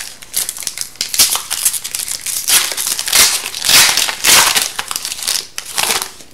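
Foil wrapper of an Upper Deck hockey card pack torn open and crumpled by hand: a run of loud crinkling rustles that stops near the end.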